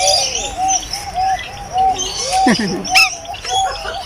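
A flock of parrots calling in an aviary: a steady run of short, arched chirps repeating three to four times a second, with higher squeaks and whistles over them. About two and a half seconds in, one lower call falls in pitch.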